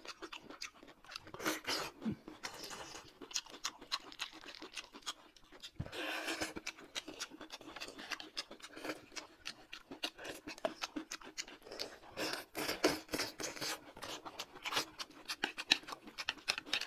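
People eating close to the microphone: chewing and smacking with many quick clicks, and chopsticks tapping on plates and bowls.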